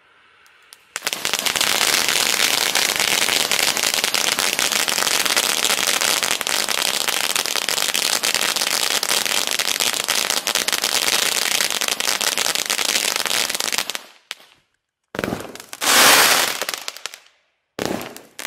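Winda Fireworks 'Killer Fountain' 24-shot fountain cake firing: a dense, steady crackling of sparks starts about a second in and runs for some thirteen seconds before fading out. After a short gap come several separate loud gushes of sparks, each rising and dying away.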